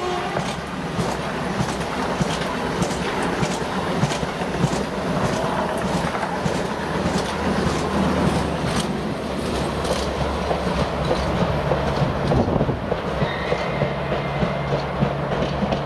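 Talgo-type coaches of a 'Strizh' high-speed passenger train rushing past, their wheels clicking rapidly over the rails. After the last car goes by, about ten seconds in, the rushing dies down and the clicks come further apart as the train moves away.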